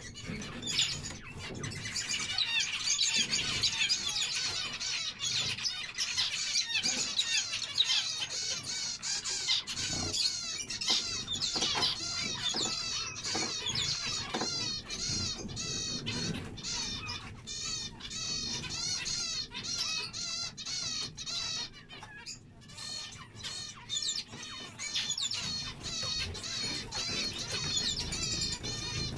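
A flock of zebra finches calling and singing together: a dense chorus of many overlapping short, high chirps and repeated notes.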